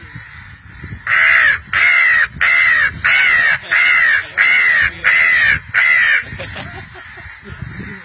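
Eight loud crow caws in a steady series, about two-thirds of a second apart, from about a second in until about six seconds in. Each caw is short and harsh, rising and then falling in pitch.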